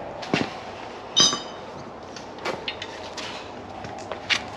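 Scattered metal clanks and clinks of tools and suspension parts being handled. The loudest is a bright ringing clink of metal on metal about a second in.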